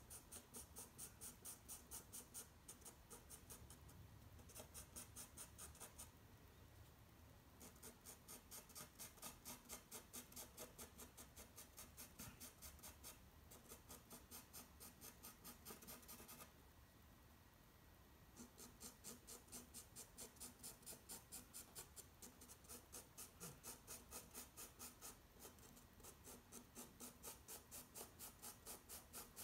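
A light green pencil hatching on toned paper: faint, quick back-and-forth shading strokes at about three a second, stopping briefly twice.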